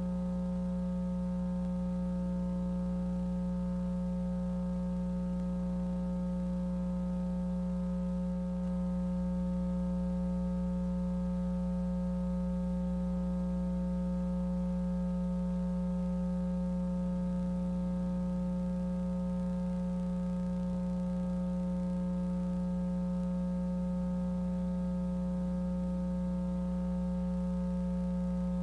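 Steady electrical mains hum on the audio feed: one low, unchanging buzzing tone with a stack of higher overtones and no other sound over it.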